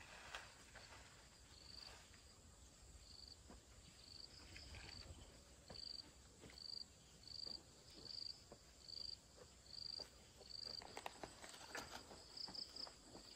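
Faint insect chirping: a short, high chirp repeated steadily about every two-thirds of a second. Soft rustling and clicks come in near the end.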